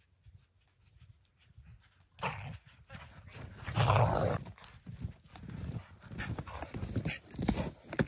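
A dog running up close through snow, its breathing and paws in the snow loudest about four seconds in, followed by crunching snowshoe steps in the snow near the end.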